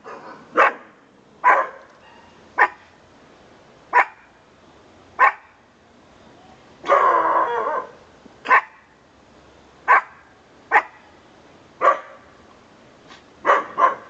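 A dog barking: single sharp barks about once a second, roughly ten in all. About halfway through there is one longer, harsher noise lasting about a second.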